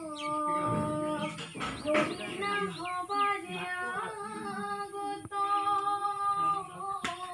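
Children singing an Assamese devotional song (dihanam) together, unaccompanied, in long held notes with slow steps in pitch.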